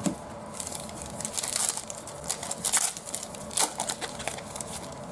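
Crinkling and rustling of a trading-card pack wrapper and cards being handled, in irregular bursts with a few sharper crackles.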